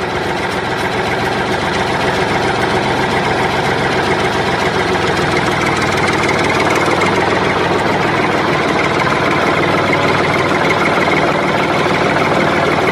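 Engine idling steadily, a tractor-engine sound effect laid over a hand-pushed toy tractor.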